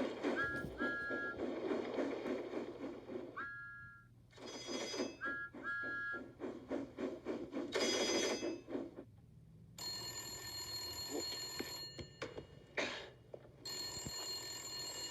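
A telephone bell ringing, two rings in the second half, the first about two and a half seconds long. Before the ringing come several seconds of noisy scuffling sounds with short high chirps.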